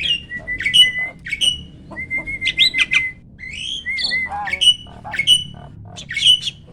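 Hybrid jalak (starling) singing: a fast, varied run of whistles, chirps and harsh squawks, with a level whistled trill held for about a second twice.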